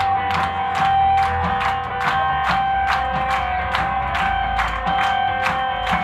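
Live alternative rock band playing an instrumental passage without vocals: electric guitar holding sustained notes over bass and drums, with crisp cymbal-like drum hits about two and a half times a second.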